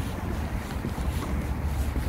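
Wind buffeting the microphone: an uneven low rumble with a light hiss above it.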